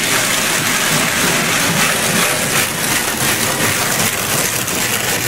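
Plastic trowel rubbing in small circles over fresh cement stucco with fine aggregate: a steady gritty scraping hiss that swells and fades with each stroke.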